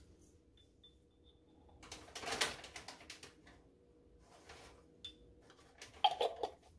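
Kitchen handling sounds from preparing food: a rustling scrape about two seconds in, a softer one later, then a quick run of light clinks from utensils or cookware near the end.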